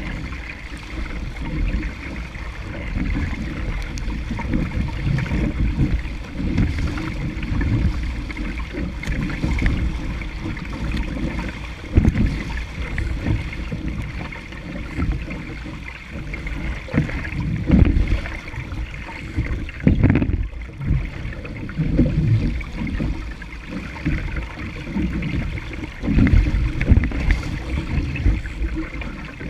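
Water rushing and splashing along the hull of a small sailing dinghy moving fast through chop, with wind buffeting the microphone in uneven gusts.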